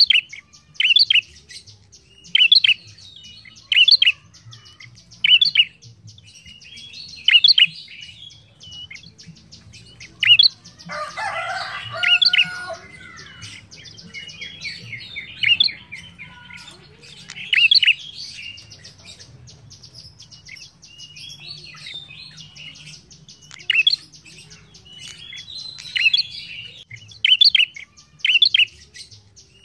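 A caged prenjak, a rufous-headed tailorbird-like songbird, sings short, sharp, high chirping phrases repeated every second or so. About a third of the way in there is a lower, rougher chattering passage lasting a couple of seconds, then the chirping phrases resume.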